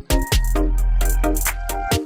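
Electronic music with a quick drum beat and deep bass notes that slide downward.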